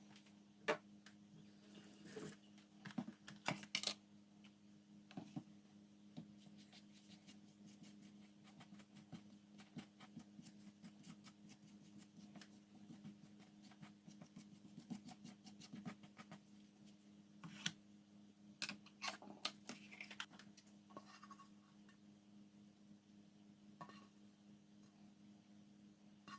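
Lunchbox packing handling sounds: scattered light clicks, taps and scrapes of containers and utensils, busiest twice, over a steady low hum.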